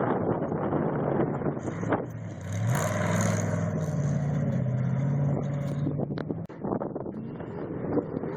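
Off-road race vehicle's engine running at high revs, its pitch rising about two and a half seconds in and holding steady for a few seconds before it fades away.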